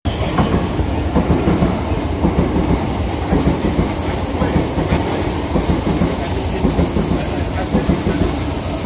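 Electric multiple-unit passenger train running past close by, its wheels clattering over the rail joints in a fast, uneven beat. A high hiss joins about three seconds in.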